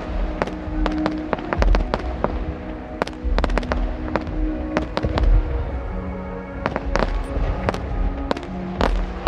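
Fireworks display: many sharp cracks and crackles of bursting aerial shells, in quick clusters, with deep booms, over music playing steadily underneath.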